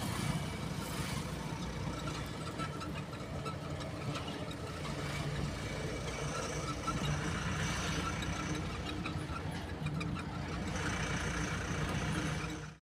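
Truck engine running under way with road noise, heard from inside the cab as a steady drone.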